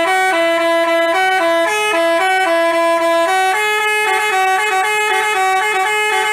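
Telolet basuri bus horn playing a quick tune. Two notes sound together, stepping up and down every fraction of a second, steady and loud.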